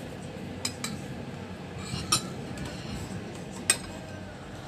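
Metal fork clinking against a plate, four short sharp clinks; the last, about three and a half seconds in, is the loudest.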